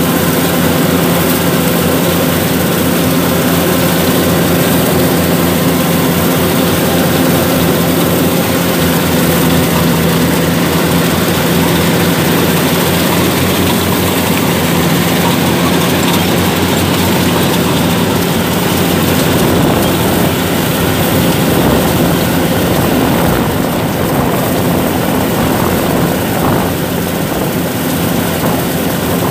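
Yanmar 850 combine harvester running steadily under load while cutting and threshing rice, heard close up from the operator's seat: a constant engine drone mixed with the noise of the cutting and threshing machinery.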